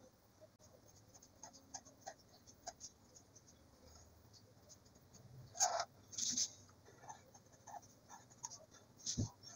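Fine-tip overhead-projector marker drawing on paper: faint, short scratchy pen strokes, with a couple of louder scrapes about halfway through.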